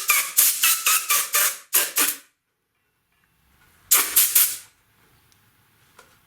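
Compressed air blown under a motorcycle handlebar grip to work it loose: quick short blasts of hissing air, about eight in the first two seconds, then a pause and a few more blasts around four seconds in.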